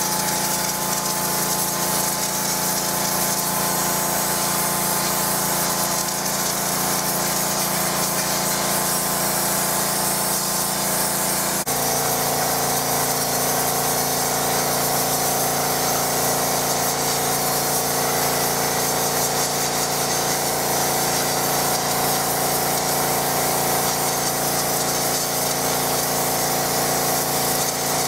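McAllister 180-bar petrol pressure washer running, its engine and pump giving a steady drone over a high hiss. About twelve seconds in, the engine note changes abruptly and then holds steady again.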